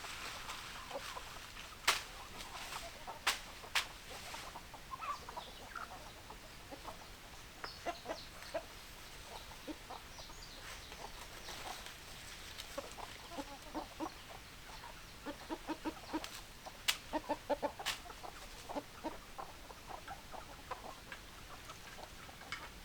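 Hens clucking in short, irregular runs of clucks, with a few sharp clicks or taps among them.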